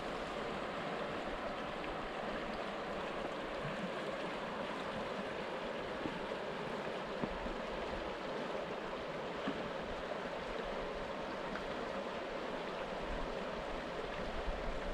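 Conejos River running steadily over shallow riffles and rocks: an even rushing of water.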